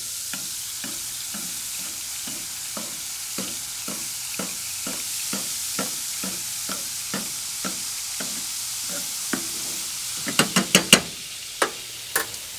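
Duck breast sizzling in its rendered fat in a pan while a spoon basts it, dipping and tapping against the pan about twice a second. Near the end come a few loud metal clanks on the pan.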